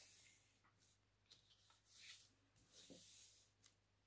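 Faint rustling of a sheet of paper being pressed and creased by hand, in several short soft swishes.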